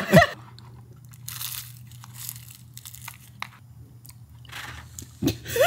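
Bites and chewing of a crisp, flaky cruffin pastry: a few short crunches spread over several seconds.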